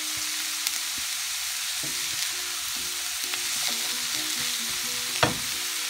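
Chopped cauliflower, bell pepper, onion and chayote sizzling as they fry in a nonstick skillet while a silicone spatula stirs them. There is one sharp knock near the end, the spatula against the pan.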